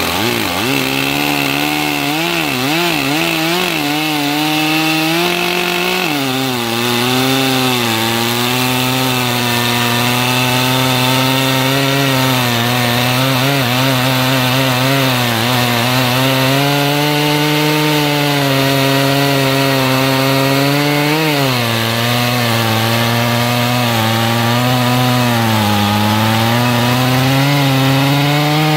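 Chainsaw with a 36-inch bar crosscutting the end off a walnut log. The engine revs unsteadily for the first few seconds, drops in pitch as the chain sinks into the wood about six seconds in, then runs on under load, its pitch dipping and recovering as the cut goes deeper.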